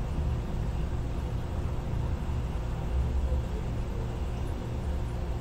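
Steady low background rumble with a few faint steady hums above it, and no speech.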